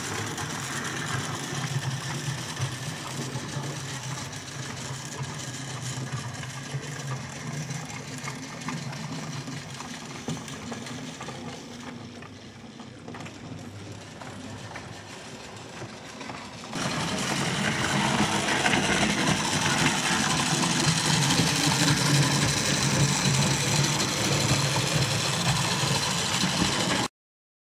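OO-gauge model trains running on a layout: the small electric motors hum steadily and the wheels rumble along the track. The sound steps up louder about 17 seconds in, then cuts off abruptly just before the end.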